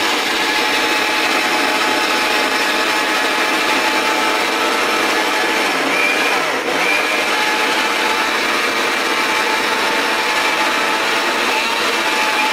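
Electric blender motor running steadily at full speed, grinding dried red chillies with a little water in its small stainless-steel grinding jar, the pods breaking down toward a paste.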